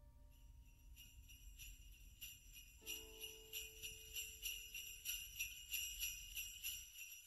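Sleigh bells jingling in a steady shaking rhythm of about three strokes a second, growing louder from about three seconds in.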